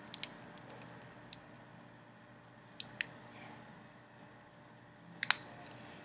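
Small sharp plastic clicks and taps from a mechanical pencil being handled and taken apart: a pair near the start, two about three seconds in, and two more near the end.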